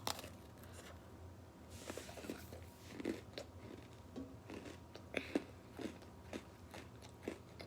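Biting into a crunchy Birthday Cake Oreo cookie and chewing it, with scattered small crunches.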